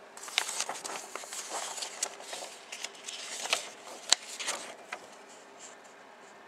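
Paper rustling and crackling as the printed sheets of a model kit's instruction booklet are handled and turned, with several sharp crinkles. The rustling dies away about five seconds in.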